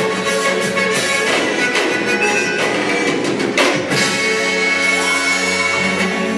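Background music with a steady beat and sustained pitched instruments.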